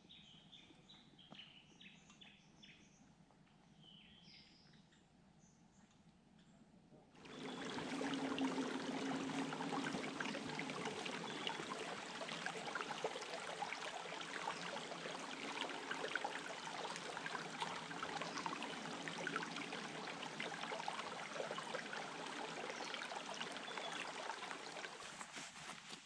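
Bush birds chirping in a quiet forest. About seven seconds in this gives way to a much louder, steady rush of a creek running over rocks, which fades just before the end.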